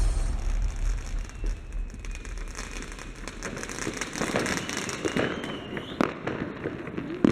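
Fireworks crackling and popping, as the end of the music dies away in the first second, with a sharp loud bang about six seconds in and another at the end.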